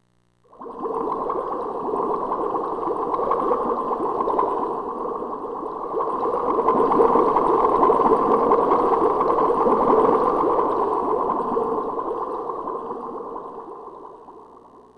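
A sound effect from the karaoke machine's Roland SC-88 sound module: a steady rushing, watery noise. It starts about half a second in, swells, and then fades away near the end.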